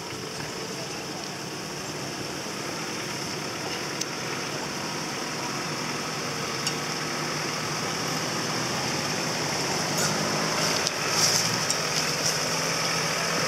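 An off-road 4x4's engine running steadily at low revs, growing gradually louder, with a few light knocks near the end.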